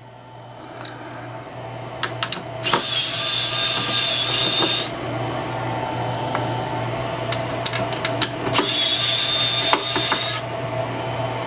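Electric screwdriver running in two bursts of about two seconds each, a whining motor, backing out the screws that hold the computer's cooling fan. Small clicks of the bit and screws fall between the runs.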